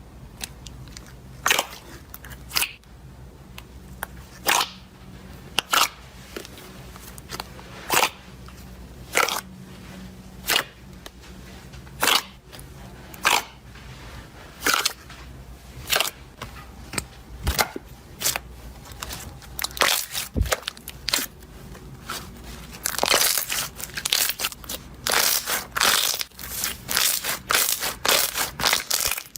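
Crunchy slime crackling as it is pressed, in short sharp crunches roughly once a second that come faster and denser over the last several seconds.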